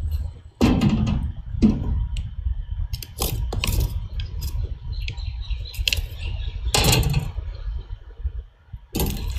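Food-preparation handling: a scattered series of knocks and clicks, about eight in all, over a steady low rumble.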